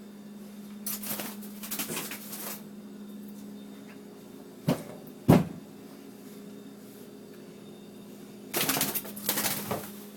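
Bursts of rustling and scuffling, with two sharp knocks about half a second apart midway, over a steady low hum.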